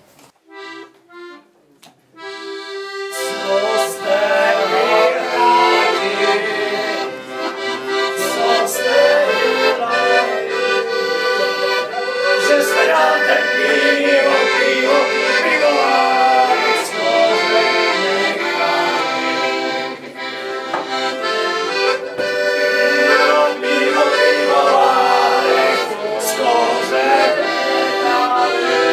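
Piano accordion playing a tune: a few short separate chords, then from about two seconds in a continuous melody over chords.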